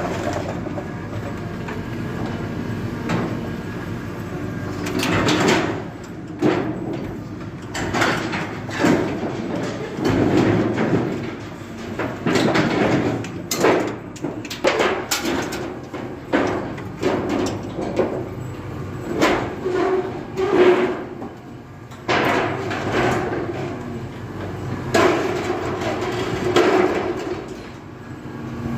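Backhoe's diesel engine running under load while demolishing a house, with repeated crashes, knocks and scraping of breaking building material throughout.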